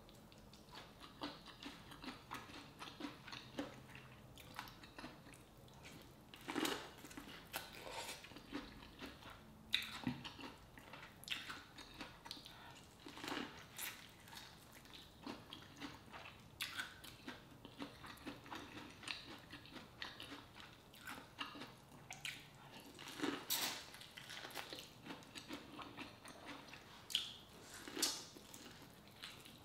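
Close-miked eating of a sauce-coated piece of corn on the cob: biting and chewing, with a string of short wet smacks and crunches at irregular intervals.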